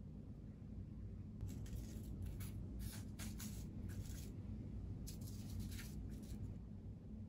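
Dry barley straws rustling and scratching in short bursts, in two clusters with a brief pause between, over a low steady hum.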